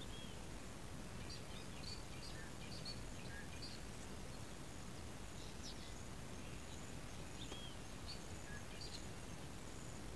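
Steady low background noise of open-air ambience, with scattered faint bird chirps and short curling calls, and a faint, high, broken line of sound that sounds like an insect above them.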